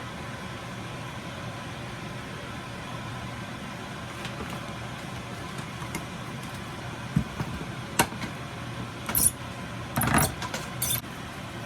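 Steady background hum, with a few sharp clicks and short shaking rattles in the last few seconds as spice containers are handled and shaken over the cooking pot.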